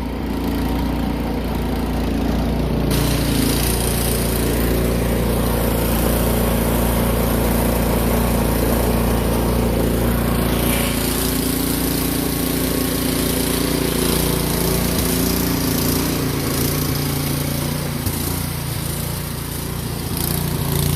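Craftsman 24-inch snowblower engine running steadily, now starting and running after its carburetor was cleaned of a fuel problem. About three seconds in it gets louder and a hiss fills in above the engine note.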